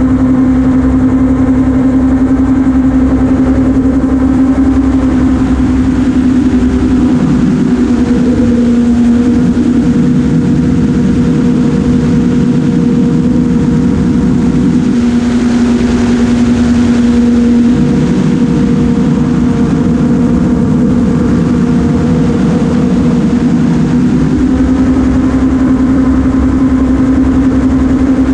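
Gyroplane in flight, its engine running loud and steady. The engine note drops slightly and comes back up a few times.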